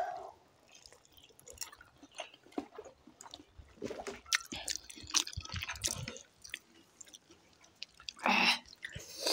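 Close-up eating sounds from several people eating spicy Buldak instant ramen noodles: wet chewing and slurping, with many small scattered clicks and smacks. A louder noisy burst comes near the end.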